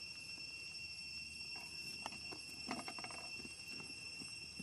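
Steady high-pitched insect drone, with a few faint short clicks and sounds about a second and a half to three seconds in.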